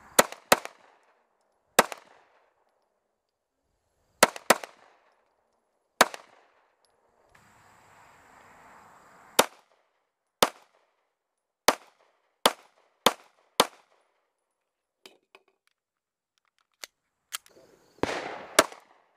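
Zastava CZ999 Compact 9mm pistol firing about fourteen single shots, unevenly spaced with a few quick pairs, each a sharp crack with a short echo. A few fainter pops come in a gap a little before the last two shots.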